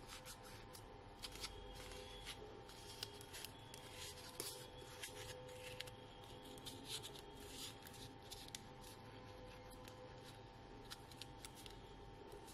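Thick card paper being folded and creased by hand: faint, scattered rustling and crinkling.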